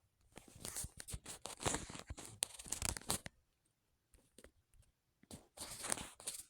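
Scratchy, crackling rustle of something being handled, in two stretches: a long one of about three seconds, then a shorter one near the end.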